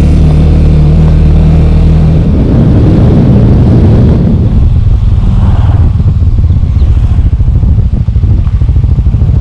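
Suzuki Thunder GSX250 motorcycle engine running under the rider while riding. The note is steady for the first couple of seconds, then from about halfway turns into a lower, choppier run of quick firing pulses.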